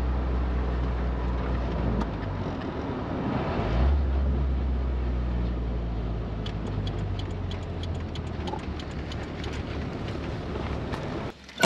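Suzuki Samurai driving along: steady engine and road noise, with a change in engine pitch about four seconds in and a run of light clicks in the second half. The noise stops abruptly near the end.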